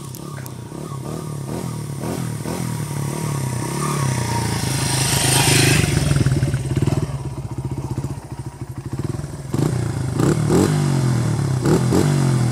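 Dirt bike engine revving hard and repeatedly, its pitch rising and falling, with the rear wheel spun in mud for a burnout. A loud rush of noise comes about five seconds in, and the revving picks up again near the end.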